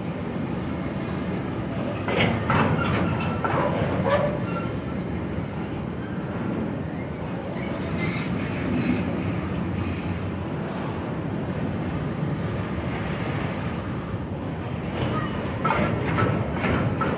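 Long Ferrosur Roca freight train of container flat wagons rolling past over a level crossing: a steady rumble of steel wheels on rail, with louder bursts of clatter about two to four seconds in and again near the end.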